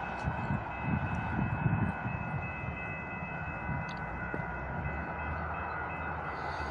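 A steady whine of several high tones held over a low rumble. Low gusts of wind buffet the microphone during the first two seconds.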